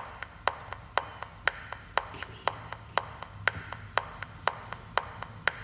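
A steady beat of sharp clicks, two a second, with fainter clicks between them.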